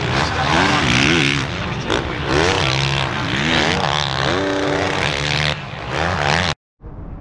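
Honda motocross bike engine revving up and down, the pitch climbing and falling repeatedly as the rider works the throttle through the jumps and ruts of the track. It cuts off abruptly about six and a half seconds in.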